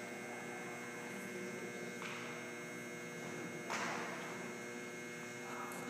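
Steady electrical hum made of several even tones, with a brief scuff about two-thirds of the way through.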